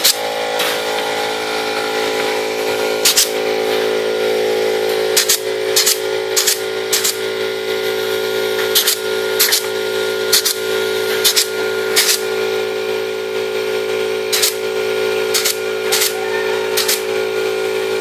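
Pneumatic clip gun firing clips to join the wire mesh panels of a chicken cage: sharp snaps at irregular intervals, about fifteen in all. A steady machine hum runs underneath.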